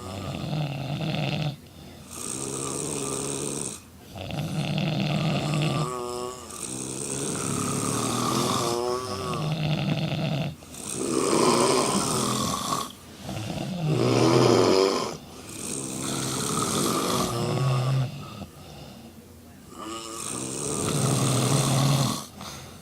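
Several women snoring loudly at once, open-mouthed, with long snores following one another every two seconds or so and overlapping; the snoring is heavy after a night of drinking.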